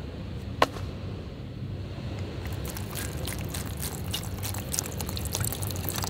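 Water being poured onto the heating pack of a self-heating meal box: a sharp click about half a second in, then a growing patter of fine crackles and fizzing as the pack starts to react.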